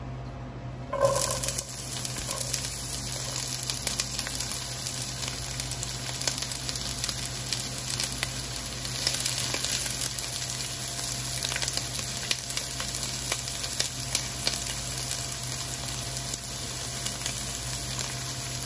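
Chopped onions dropping into hot oil about a second in and sizzling in the pan, a dense crackling hiss that keeps going while a spatula stirs them.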